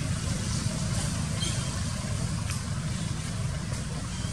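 A steady low rumble under an even hiss, like an engine running nearby.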